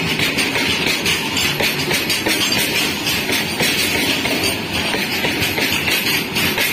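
Freight train of open wagons rolling past close by: steady noise of steel wheels running on the rails, with a fast, continuous clatter.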